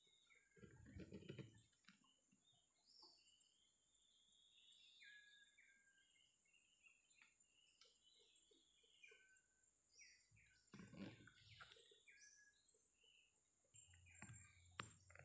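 Faint forest ambience: scattered short bird chirps over a steady high insect buzz, with a few low rustles and one sharp click near the end.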